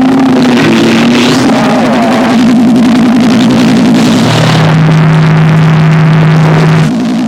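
Harsh electronic noise music: a loud wash of distorted noise over a rapidly warbling low tone, which gives way about four seconds in to a steady low drone, then drops in level and warbles again near the end.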